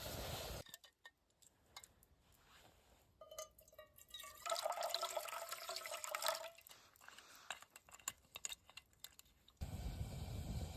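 Liquid being poured into a container and dripping: scattered drips, then a louder pour with a ringing tone lasting about two seconds, then more drips.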